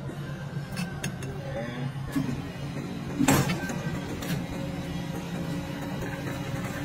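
Commercial gelato machine running, its motor humming steadily as the rotating dasher and scraper churn thick gelato. A couple of faint clicks come early and a sharp knock about three seconds in.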